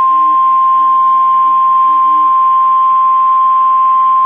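NOAA Weather Radio warning alarm tone: one loud, unbroken, steady beep at about 1050 Hz over faint radio hiss. It is the attention signal that a warning message, here a severe thunderstorm warning, is about to be read.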